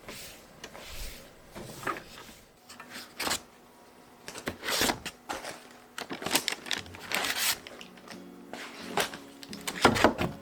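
Household handling sounds: scattered clicks, knocks and rustles of items being picked up, moved and set down, the loudest cluster near the end, over faint background music.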